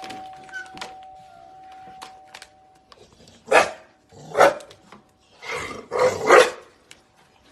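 A dog barking: two single barks about a second apart, then a pair of barks close together near the end.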